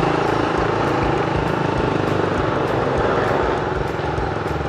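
Suzuki Raider R150's single-cylinder engine running as the motorcycle rides slowly through traffic, with steady wind noise over the helmet microphone. It eases off slightly near the end.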